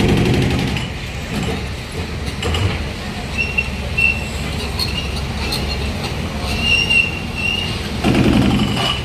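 Heavy diesel machinery running with a steady rumble, with several short, high-pitched metallic squeals from about three and a half seconds in, and a louder surge in the engine near the end.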